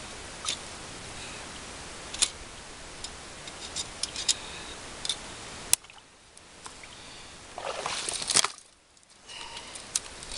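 Scattered sharp metallic clicks and handling noise over a steady hiss as a trap set is worked. The hiss drops off abruptly about halfway, and a brief rustling scrape comes near the end.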